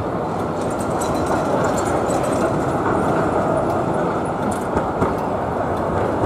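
Electric Z-class tram running on street track through a road junction, over a steady hum of city traffic, with a short knock about five seconds in.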